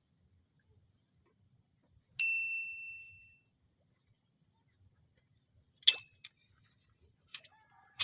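A single metallic ding, struck once about two seconds in, ringing clear and fading away over about a second. It is followed near the end by a few sharp clicks and knocks.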